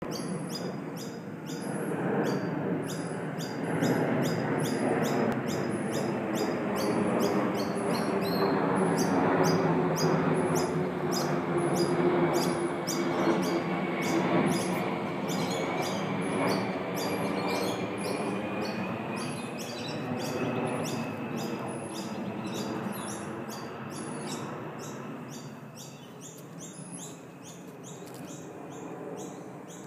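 Outdoor ambience: a high chirp repeating steadily about two or three times a second, over a low drone that swells over the first ten seconds and then slowly fades away.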